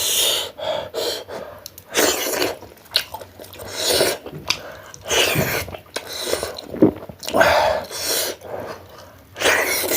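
Close-up mouth sounds of someone eating: chewing and slurping of food, mixed with sharp sniffs and breaths, in a string of short noisy bursts.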